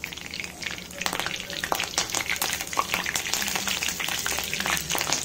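Curry leaves and cumin seeds spluttering and sizzling in hot oil in a stainless steel kadhai: a dense run of crackling pops over a steady sizzle, growing busier about a second in. This is the tempering (tadka) stage, the oil hot enough for the leaves to crackle.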